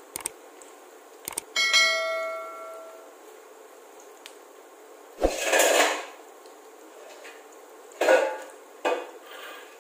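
Metal kitchen utensils and cookware clinking: a few light clicks, then one strike that rings out for about a second and a half. Short, noisy scraping sounds follow around the middle and near the end.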